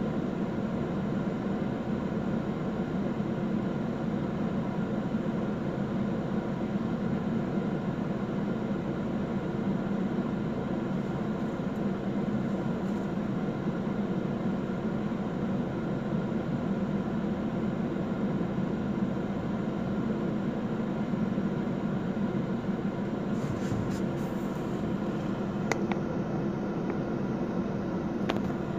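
Steady drone inside a car's cabin with the engine idling, the car almost at a standstill in traffic. A couple of faint clicks near the end.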